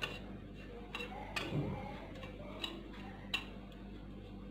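A hand mixing dry crumbs of ground sesame and crushed biscuit in a glass bowl: a soft rustle of the crumbs, with a few light clicks of fingers against the glass.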